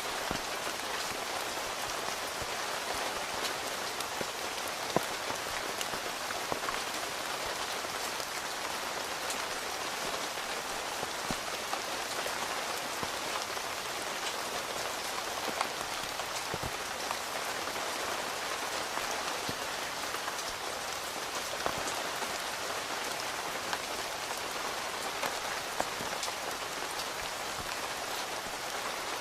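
Steady rain falling on a tent, heard from inside, an even hiss of drops with a few louder single drops standing out now and then.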